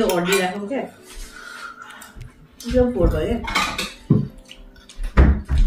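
Forks and chopsticks clinking and knocking against ceramic bowls and plates while noodles are eaten, with a few sharp knocks in the second half, between short bits of talk.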